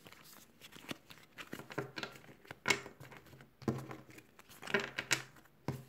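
Plastic sticker packets and zip bags rustling and crinkling in irregular bursts as they are handled and sorted by hand.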